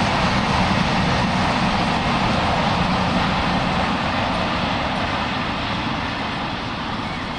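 Freight train hauled by a DR class 118 diesel-hydraulic locomotive rolling away, a steady rumble of engine and wheels on rails that slowly fades.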